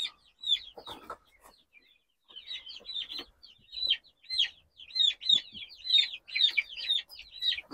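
Four-week-old chicks peeping: short, high peeps, mostly falling in pitch. They are sparse at first, then come quickly from about two seconds in.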